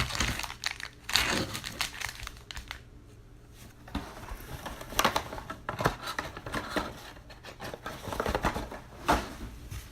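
Crinkling and tearing of the plastic wrapping on a pack of trading cards being opened by hand, in irregular bursts with a sharp click right at the start.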